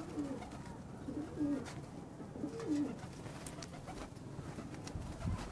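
Domestic pigeons cooing: three low coos, about a second apart.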